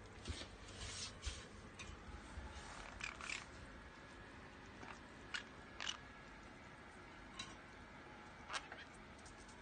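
Green-cheeked conure biting and chewing a chunk of apple: fairly quiet, scattered short crunches and beak clicks. They come in a cluster over the first few seconds, then singly every second or so.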